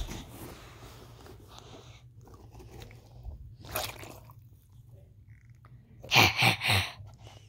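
Crunching, chomping noises of a puppet-play bite attack: a short burst about four seconds in, then a loud flurry of three or four crunches about six seconds in.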